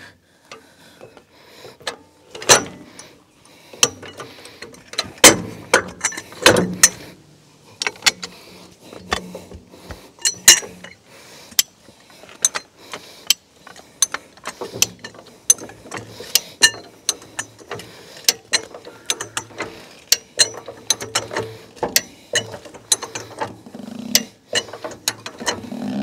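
High-lift jack being pumped, its handle and climbing pins clacking in an irregular run of sharp metal clicks as the jack foot presses down on a tyre sidewall to break a stubbornly stuck bead off the rim.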